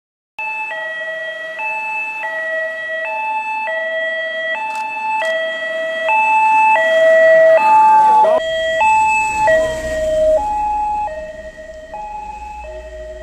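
Two-tone siren of a vintage police car, alternating between a low and a high note about every 0.7 seconds and growing louder as the car approaches. About eight seconds in it drops back and carries on fainter, with a low rumble underneath.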